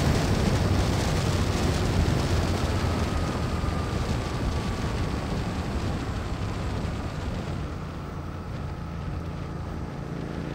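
Royal Enfield Continental GT 650 parallel-twin engine running at high road speed under heavy wind rush. It grows gradually quieter and duller over the last few seconds.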